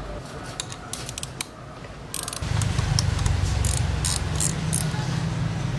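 Ratchet wrench clicking in short runs as a bolt on the motorcycle's front fork clamp is turned. A low steady hum comes in about two and a half seconds in.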